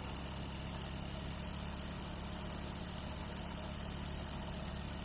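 Zenith CH 701's ZD C100 engine, a flat-four Rotax 912ULS clone, idling steadily on the ground with the propeller turning over.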